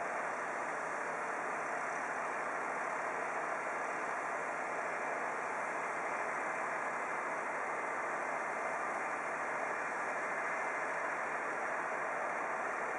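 Steady, even engine noise of idling vehicles such as the parked fire engines, with no separate knocks, horns or voices standing out.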